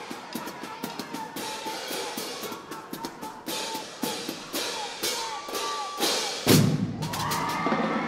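Marching band drumline playing a fast cadence: snare drums, tenor drums, bass drums and crash cymbals striking in quick rhythm. About six and a half seconds in comes one loud hit with a long ring.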